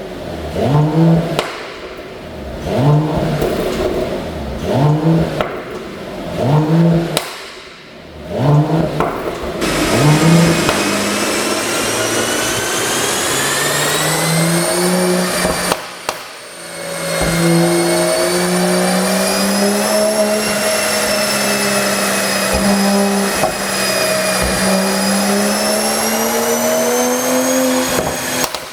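Mercedes-AMG CLS53's turbocharged 3.0-litre inline-six, on a pop-and-crackle exhaust tune, revved in short blips about once a second, eight times. It is then held at high revs with the pitch drifting up and down, drops briefly midway, climbs again and cuts off suddenly near the end.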